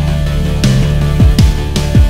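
Background instrumental music with a steady beat of deep drum hits.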